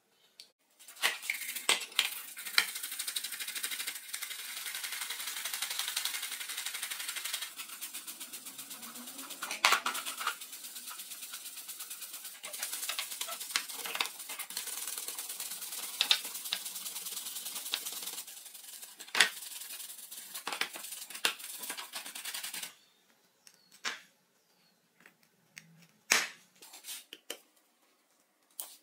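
A brush scrubbing a plastic flashlight housing in soapy water: a steady hissing scrub broken by sharp clicks and knocks. It stops about 23 seconds in, and a few scattered small clicks follow.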